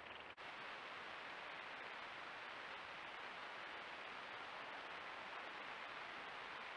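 Steady hiss of a trail camera's microphone self-noise, with a brief dropout about a third of a second in where one clip gives way to the next.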